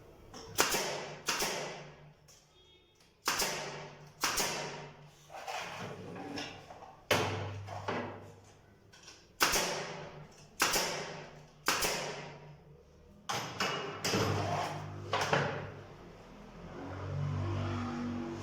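Hammer blows on wood, a dozen or so sharp knocks about a second apart and unevenly spaced, as wooden budgie cage parts are nailed together.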